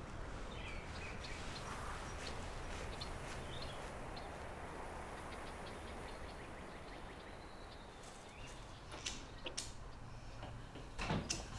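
Quiet, steady outdoor background hiss with faint bird chirps. After about nine seconds come a few sharp clicks: a cigarette lighter being struck.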